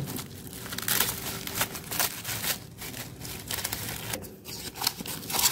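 Plastic shipping mailer crinkling and rustling in irregular crackles as hands and a utility knife work its taped seal open.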